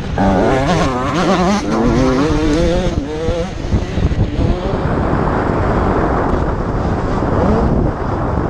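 85cc two-stroke motocross bike engine at race pace, revving up and down repeatedly through gear changes and throttle, then running rougher and noisier over the track with a brief rising rev near the end.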